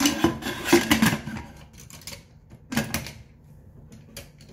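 Pressure cooker lid being fitted and twisted shut on the pot, clattering and clicking against the rim; a rapid run of clicks in the first second, another burst near 3 s and a couple of light clicks near the end.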